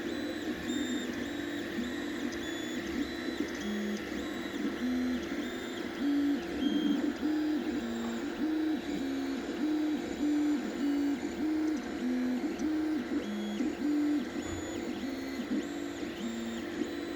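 Anycubic 3D printer printing a vase in spiral mode: its stepper motors sing in a few alternating pitches, the note switching about twice a second as the print head travels around, over a steady whir.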